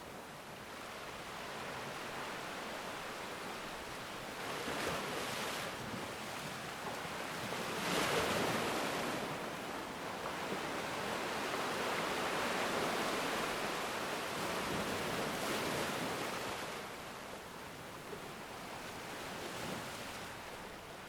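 Ocean waves washing onto a shore as a steady surf hiss, swelling as breakers come in, with the biggest surge about eight seconds in.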